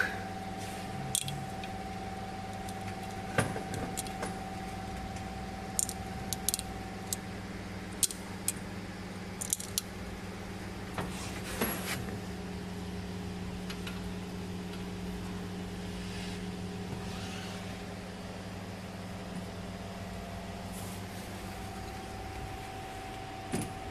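Steady low mechanical hum with a few held tones, and scattered light clicks and metallic taps.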